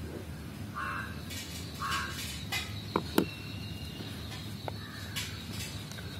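Birds calling outdoors: two short harsh calls about a second apart, then two quick, sharp downward chirps in close succession.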